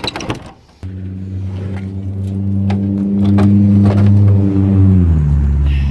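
A motor running with a steady low hum. About five seconds in its pitch drops and it keeps running lower.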